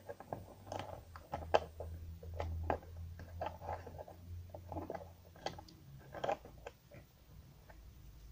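Small plastic clicks and taps as a hand handles a G.I. Joe action figure and stands it on a desktop, over a low steady hum; the clicks die away near the end.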